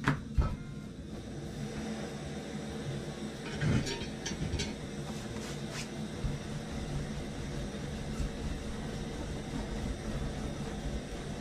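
Wooden rolling pin working dough on a tabletop, with a few sharp knocks near the start and a short clatter about four seconds in, over a steady low rumble.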